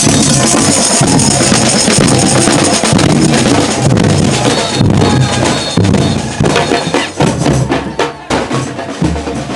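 Marching drum band playing a loud, driving rhythm on bass and snare drums.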